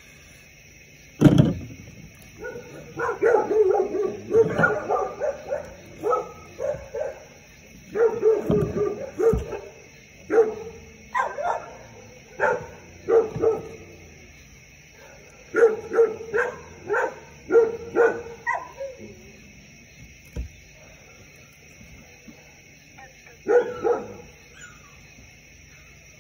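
A dog barking and yipping in runs of short, sharp barks with pauses between them, after a sharp thump about a second in.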